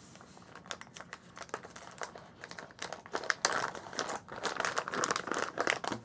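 Plastic zip pouch crinkling and rustling as it is opened and a coiled charging cable is pulled out. The crinkling is light at first and grows denser and louder from about halfway.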